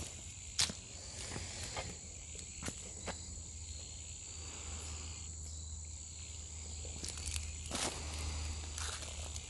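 Outdoor ambience with a steady high-pitched insect drone, broken by a few short rustles and steps as someone pushes through leafy shrubs, with a louder brush of leaves about eight seconds in.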